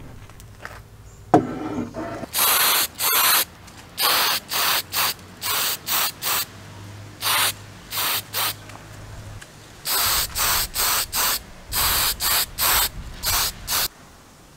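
Black spray paint hissing from a nozzle in about twenty short bursts, some in quick runs of three or four, as a metal part is coated. A single sharp click comes about a second and a half in.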